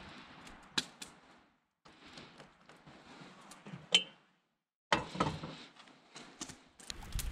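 Water poured from a metal kettle into a small cup, then sharp clicks and clanks as the kettle and its lid are handled and set down on the grate of a portable camp stove. The sound is broken by two brief dead silences.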